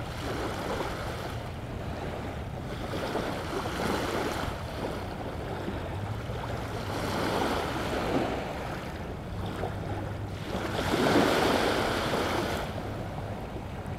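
Small waves washing onto a lakeshore beach, the sound of the wash swelling and easing several times and loudest about eleven seconds in.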